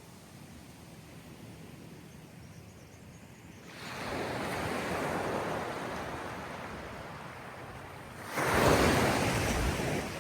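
Waves washing in at the water's edge, in two surges: one about four seconds in that slowly dies away, and a louder one, heavier in the low end, near the end.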